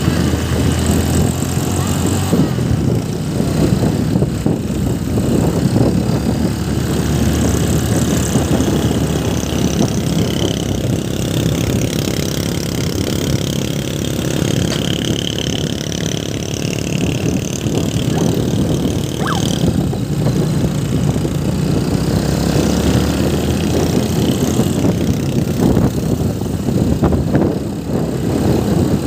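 Riding on a moving motorcycle: a steady rush of wind on the microphone with the motorcycle's engine running underneath.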